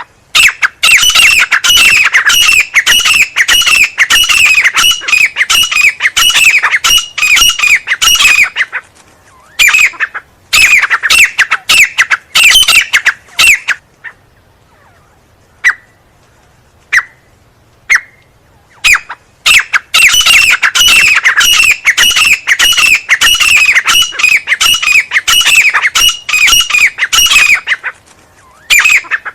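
Francolin (teetar) calling loudly in long runs of rapid, harsh notes that slide downward, several a second. The runs break off near the middle, where only a few single notes sound, then start again.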